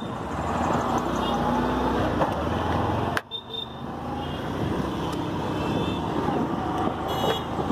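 Motorcycle being ridden in town traffic: its engine running steadily under road and traffic noise. The sound drops out briefly about three seconds in.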